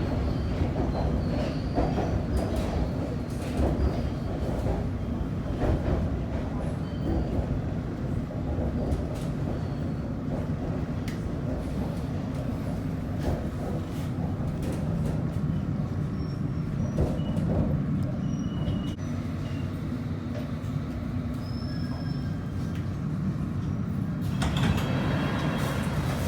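London Underground train running, a steady low rumble with brief high wheel squeals and scattered clicks from the track. About 24 seconds in, a hiss rises over the rumble.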